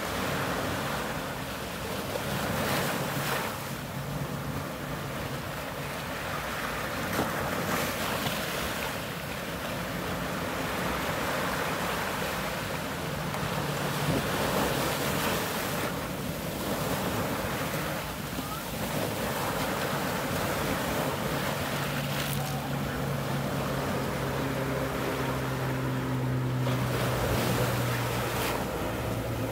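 Surf on a sandy shore: small waves breaking and washing over black volcanic rocks, surging every few seconds. A low steady hum joins in over the last several seconds.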